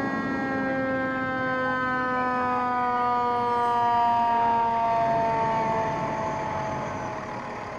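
Fire engine siren sounding one long tone that falls slowly in pitch, growing louder toward the middle and fading near the end.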